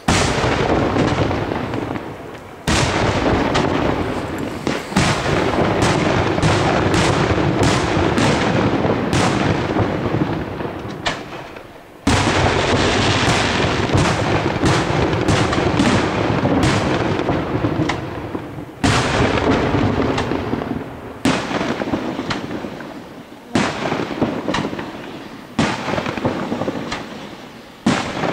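Aerial firework shells bursting in a dense barrage: booms and crackling overlapping almost without pause, with fresh volleys starting sharply about 3, 12 and 19 seconds in and several more near the end.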